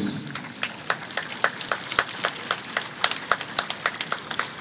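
Applause from a small crowd: many separate hand claps, irregular and distinct rather than blending into a roar.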